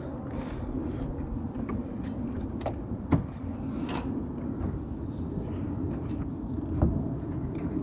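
A steady low outdoor rumble with two sharp knocks on the wooden scaffold boards, one about three seconds in and a softer one just before seven seconds.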